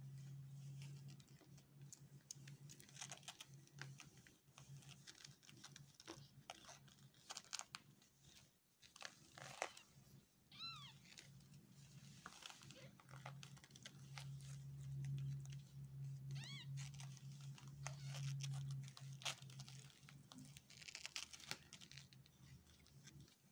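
Newborn kittens nursing on their mother: two short, high squeaky mews that rise and fall, amid soft rustling and small clicks as they shift about on a crinkly absorbent pad, over a low steady purr that comes and goes.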